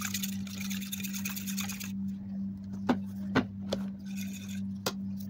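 Raw eggs being beaten with a metal utensil in a plastic plate: a fast, even run of clicking strokes that cuts off suddenly about two seconds in. Then a few separate light clicks, over a steady low hum.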